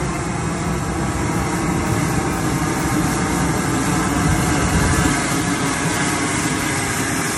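Boeing 747-400ERF's auxiliary power unit (APU) running in the tail, its exhaust giving a loud, steady rush of noise with a faint whine through it.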